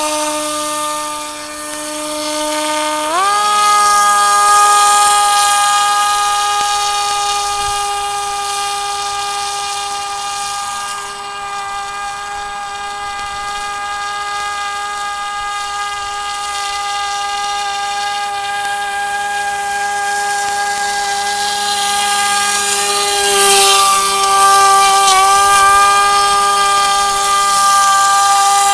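Radio-controlled model airboat's motor and air propeller running as a steady, loud whine. The pitch rises about three seconds in and then holds, with a brief dip near the end.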